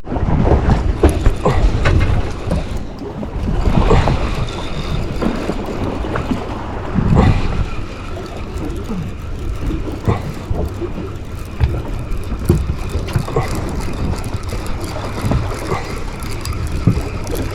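Wind buffeting the microphone aboard a fishing boat, over a steady low rumble of the boat on the water, with faint voices now and then.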